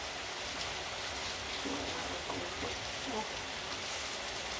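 Chicken frying in a pan, a steady crackling sizzle.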